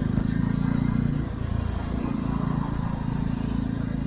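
Jawa 42 motorcycle's single-cylinder engine running steadily while riding, its note easing and shifting briefly about a second in.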